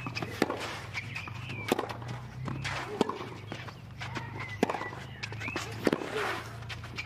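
Tennis rally on a clay court: racquet strikes on the ball come about every second and a quarter, five in all, with the players' shoes scraping and stepping on the clay between shots.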